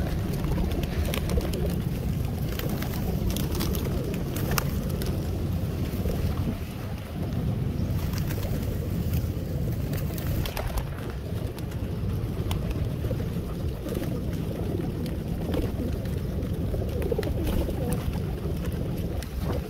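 A crowded flock of pigeons feeding at close range: a steady low cooing, with many short flutters and flaps of wings, most frequent in the first half.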